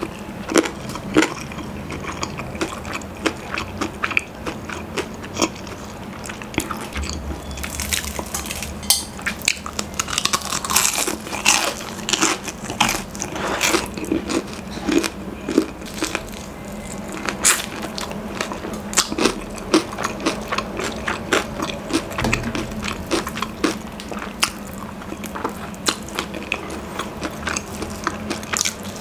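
Close-up eating sounds: crunching bites and chewing of crispy fried chicken, with irregular sharp crackles of the breading and wet mouth sounds. The crackling is densest in the middle stretch.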